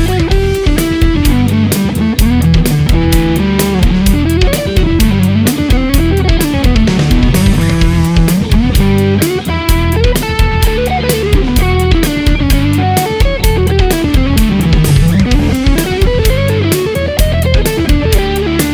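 Electric guitar, a Fender Telecaster, played through a Suhr Badger 18 all-tube amp head with an EL84 output section: single-note melodic lines running up and down. A backing track with bass and drums plays under it.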